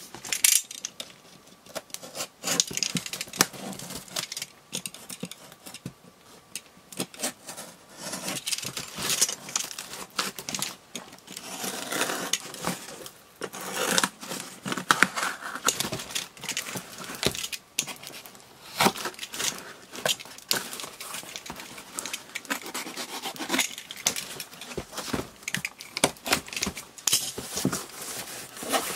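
Box cutter slicing and scraping through packing tape on a cardboard box, with many sharp irregular clicks and crackles of tape and cardboard. Near the end the cardboard flaps are pulled open.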